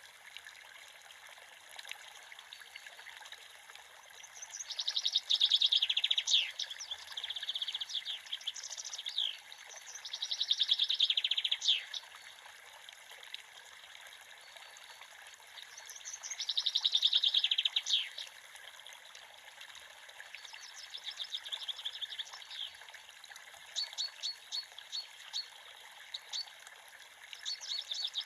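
Creek water running steadily while a songbird sings loud, rapid trilled phrases that end in quick downward sweeps, repeated every five or six seconds, with softer chips between them.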